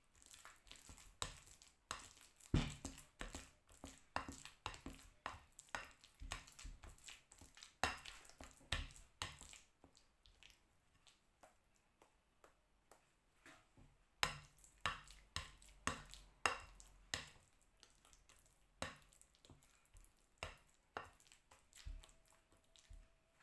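Potato masher mashing overripe bananas in a bowl, knocking and scraping against the bowl in quick, irregular taps that thin out for a few seconds in the middle.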